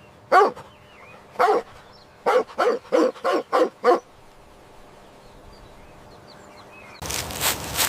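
A dog barking: two single barks about a second apart, then a quick run of six.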